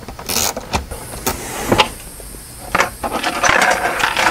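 Wires rustling and clicking as they are handled, then near the end a plastic cable tie pulled tight through its catch with a quick zipping rattle.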